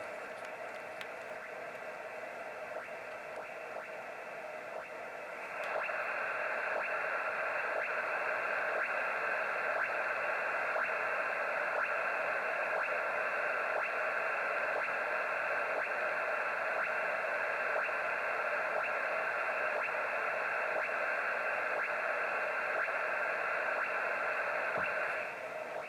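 HF radio receiver audio: hiss and static through a narrow receiver passband. About five seconds in, a louder steady rushing noise signal comes on suddenly, runs for about twenty seconds, then cuts off shortly before the end.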